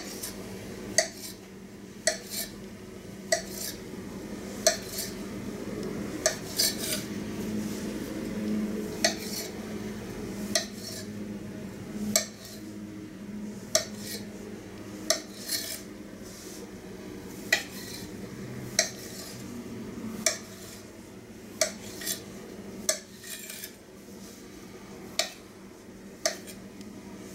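Chef's knife cutting through floured noodle dough and tapping on a stone countertop: sharp taps about once a second, at an uneven pace.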